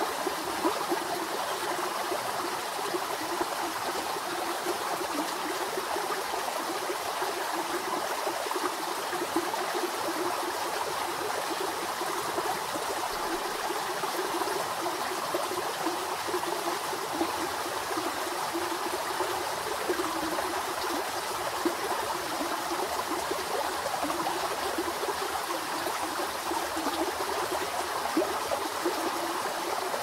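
Shallow river flowing over a rocky bed: a steady rushing babble of water over the stones, with brief small splashes here and there.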